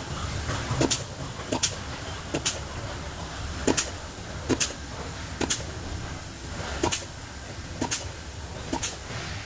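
Sharp metallic clicks or taps from hand tools working on an electric motor during disassembly, coming irregularly about once a second and sometimes in quick pairs, over a low steady rumble.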